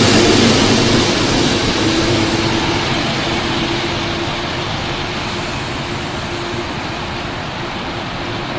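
Passenger train rushing past and receding, its noise fading steadily.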